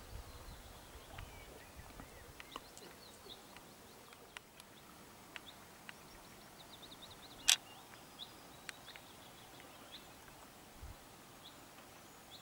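Small birds calling in the forest over a quiet outdoor hush, with a quick run of short high notes about halfway through. A single sharp click comes a little past the middle, and a few fainter ticks are scattered through.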